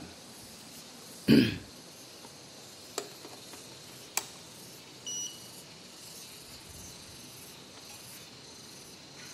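A thump about a second in and two sharp clicks, then a short electronic beep from a robot vacuum cleaner about five seconds in, over faint steady background noise.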